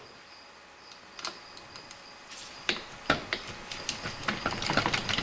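Light clicks and taps of small Makita grinder parts being handled during disassembly and reassembly, a few at first and then coming thick and fast in the second half, over a faint steady high-pitched tone.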